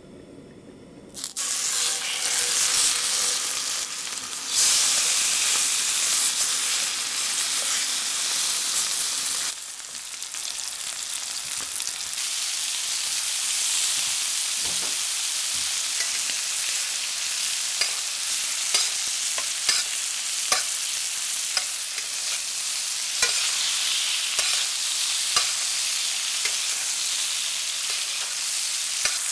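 Pork chops frying in hot rapeseed oil and butter in a frying pan: a steady sizzling hiss that starts about a second in. From about halfway on it is dotted with sharp little clicks and pops.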